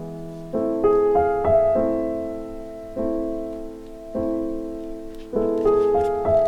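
Background piano music: slow, soft chords, each struck and left to fade before the next.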